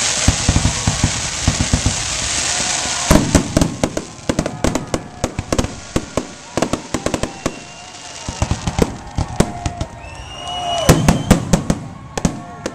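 Fireworks display: a loud rushing hiss with quick low thumps for the first few seconds, then a rapid string of sharp bangs and crackles. About ten seconds in, a few rising whistles sound among more bangs.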